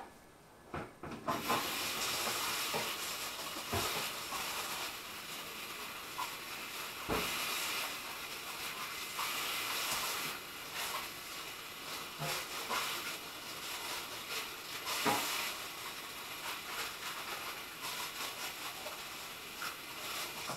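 Food frying in oil in a glass-lidded pan on a gas stove: a steady sizzle with frequent sharp pops and crackles, starting about a second in after a couple of clicks.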